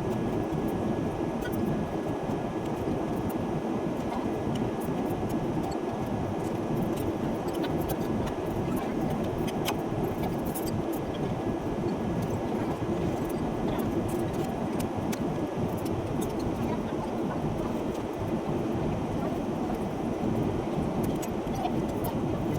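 Steady rumbling drone inside a moving vehicle's cabin, with scattered small clicks and rattles and a faint thin tone that stops about two-thirds of the way through.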